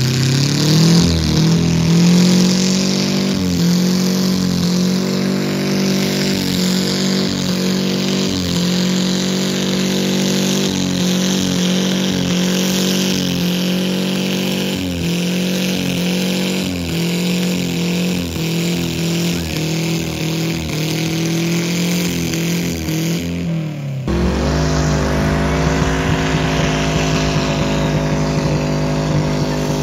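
Mini tractor-pull garden tractor's engine running hard under load as it drags a weight-transfer sled, its pitch climbing at the start and then wavering up and down through the pull. About 24 seconds in the sound switches abruptly to a different engine running steadily with a deeper rumble.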